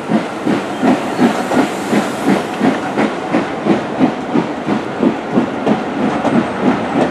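Steam-hauled train of coaches rolling past close by, with a steady, even rhythmic beat of about three strokes a second.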